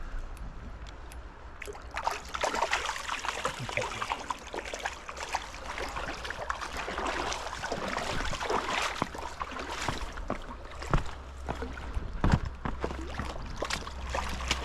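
River water splashing and sloshing, an irregular run of splashes and trickling that starts about two seconds in, over a steady low rumble.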